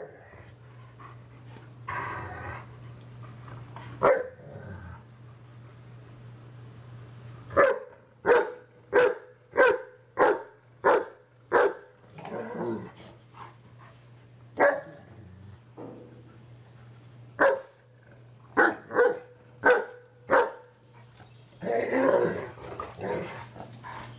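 Dogs barking in rough play: a run of short, sharp barks about two a second, broken by growling and snarling scuffles.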